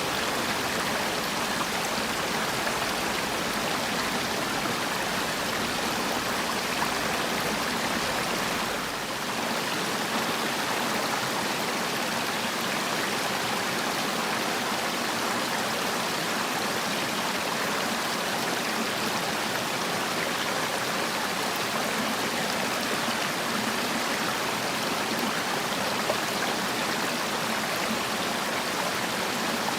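Mountain valley stream flowing steadily, an even wash of water noise, dipping slightly for a moment about nine seconds in.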